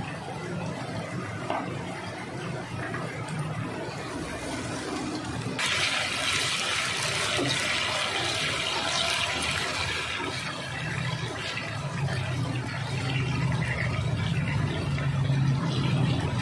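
Chicken skin frying in hot oil in a pan, a steady sizzle that turns suddenly louder and brighter about five and a half seconds in, over a low hum.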